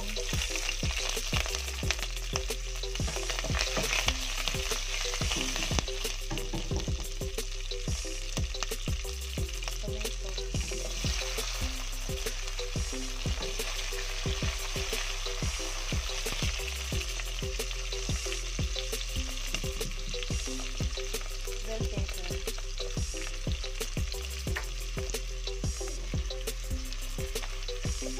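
Onions, tomatoes and bell pepper sizzling steadily as they fry in hot oil with garlic, a little louder over the first few seconds as the vegetables go in. A cooking utensil clicks and scrapes against the pan many times as they are stirred.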